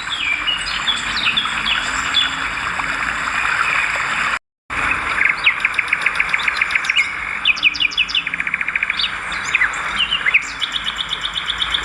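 Swiftlets twittering in a dense chorus of short chirps, with fast trains of clicking chirps in the second half. The sound cuts out completely for a moment about four and a half seconds in.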